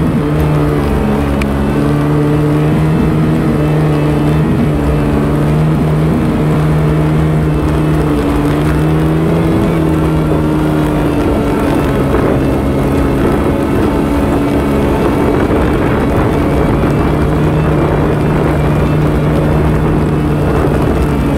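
ATV engine running steadily at cruising speed, heard from on the quad being ridden, its pitch wavering slightly with the throttle.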